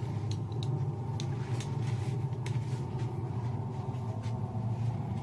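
Steady low rumbling hum inside a small metal room, with a few faint clicks scattered through it.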